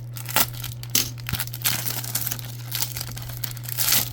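Foil trading-card pack wrapper being torn open and crinkled: a run of irregular crackles and rips, the loudest near the end.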